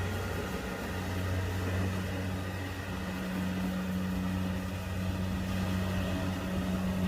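Rice combine harvester's engine running at a steady, unchanging pitch.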